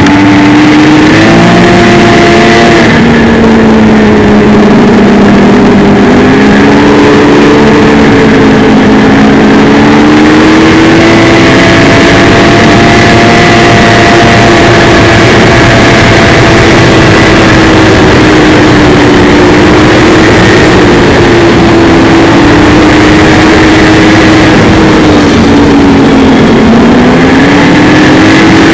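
Snowmobile engine running loud and close at trail speed, its pitch rising and falling as the throttle changes.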